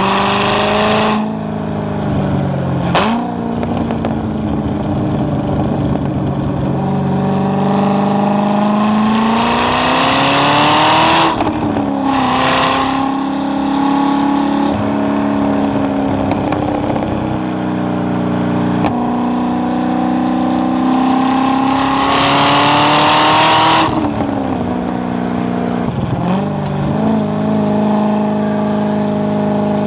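Chevrolet Corvette C6 Z06's 7.0-litre LS7 V8 driven hard. Its pitch climbs under full throttle and drops sharply at each upshift, about a third and a half of the way in. Near the end it falls away sharply under braking, with a few short pitch jumps on the downshifts, then settles to a steady cruise.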